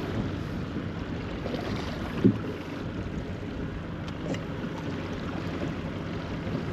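Steady wind and water noise aboard a small fishing boat, with one short knock about two seconds in.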